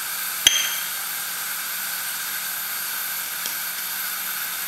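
Steady background hiss with a faint low hum, and one sharp metallic clink about half a second in that rings briefly: a stainless-steel measuring cup knocking as minced dill relish is emptied into a plastic tub.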